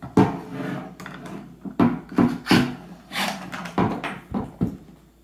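Clatter of 3D-printed shotgun parts being handled: a string of sharp knocks and scrapes as the plastic fore end with its metal barrel is lifted off a wooden table and slid onto the receiver's threaded steel frame rods.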